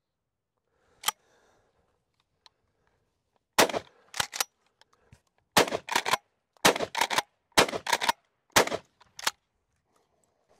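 Rock Island All Gen 12 pump-action 12-gauge shotgun: a single click about a second in, then five shots of 2¾-inch low-brass #7.5 birdshot about a second apart, each followed by the clack of the pump being worked.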